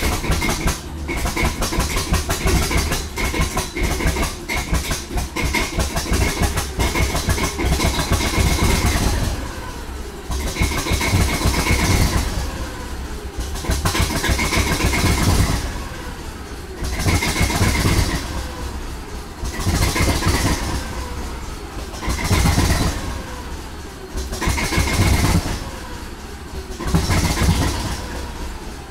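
Diesel engine of a Northern Ireland Railways Class 450 'Thumper' DEMU, an English Electric four-cylinder unit, starting up after three years out of use and running with a deep, throbbing note. From about nine seconds in, its sound swells and falls back every two to three seconds.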